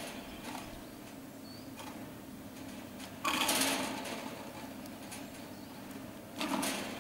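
Haul rope of a 1959 Doppelmayr T-bar ski lift running around its overhead bullwheel with a steady low hum. Twice, about three seconds apart, a sudden loud clatter that dies away over about a second as a Liftomat hanger passes the wheel.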